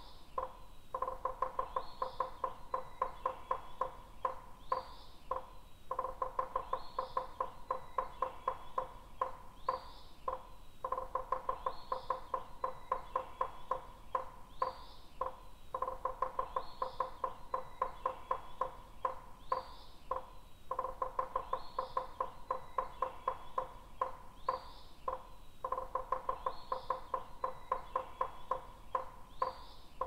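Rapid woodpecker tapping in runs of about four seconds, repeating about every five seconds with short breaks, over a short high bird chirp about once a second. The pattern is very regular, like a looped track.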